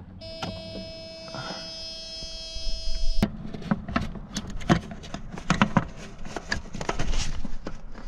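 The car's dashboard warning buzzer sounds steadily for about three seconds and cuts off with a click. Irregular clicking and rustling follow as a gloved hand works among the wiring and control modules.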